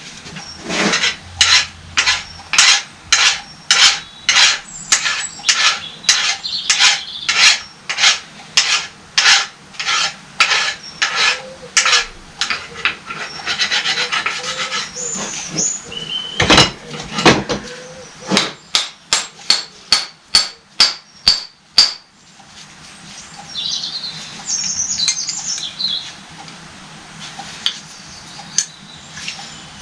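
Hand tool scraping metal in repeated back-and-forth strokes, about two a second, as the shaft and body of a hydraulic pump are cleaned of rust and grime so the shaft can come out. The strokes quicken past the middle, with short stretches of continuous scraping in between.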